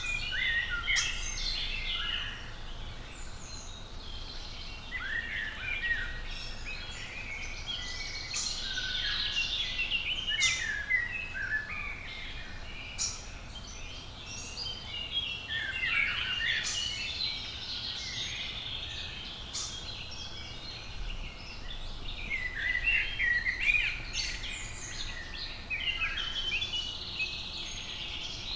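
Several songbirds singing at once in a continuous chorus of overlapping chirps and warbles.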